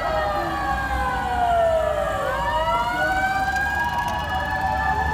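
Fire-department mechanical motor siren winding down in pitch for about two seconds, then winding back up and holding a high wail. A steady low rumble runs underneath.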